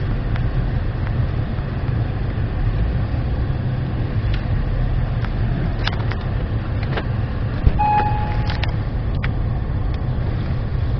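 Acura MDX SH-AWD driving over rough off-road ground: a steady low rumble with scattered clicks and knocks, and a brief tone about eight seconds in.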